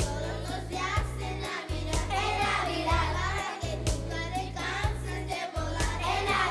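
School children's choir singing with instrumental accompaniment: a deep bass line under the voices and a steady beat about once a second.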